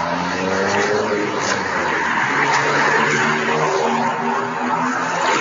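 Road traffic: cars passing close by, their engine notes rising and falling in pitch over steady tyre and road noise.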